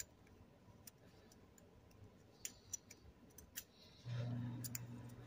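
Faint, irregular light clicks of thin steel piston-ring rails being spiralled by hand into the ring grooves of a piston. About four seconds in, a low steady hum starts and is the loudest thing heard.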